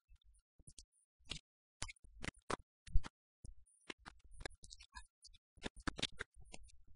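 Scattered, irregular clicks and knocks over a faint low rumble, the loudest knock about three seconds in.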